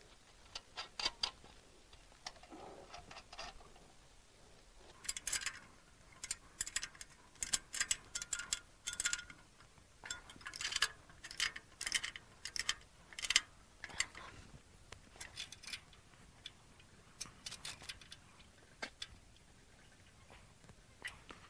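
Ratcheting wrench clicking in short runs, with light metal clinks, as nuts are tightened onto the long mounting bolts of a hydraulic control valve unit.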